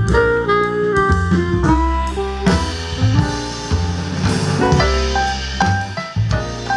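Instrumental music with a beat, played by a PAM8610 class D amplifier board driving a homemade speaker box with woofers and tweeters. It is picked up off the speaker by the camera's microphone, so the room's acoustics colour it.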